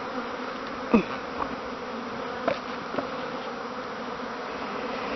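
Honeybees buzzing in large numbers around a hive, a steady hum, with a few brief louder buzzes, the loudest about a second in.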